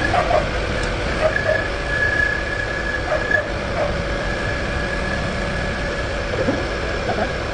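Machine tool running steadily, with a constant high whine over a lower hum and a broad mechanical noise.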